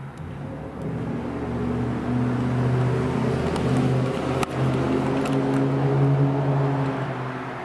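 A steady low mechanical hum with a few held overtones, like a motor or engine running, growing louder over the first couple of seconds and fading near the end. A single sharp click about four and a half seconds in.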